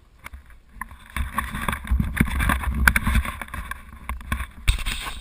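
Handling noise from a hand gripping the camera: rubbing and scraping on the housing with sharp knocks and clicks, from about a second in. There is wind on the microphone.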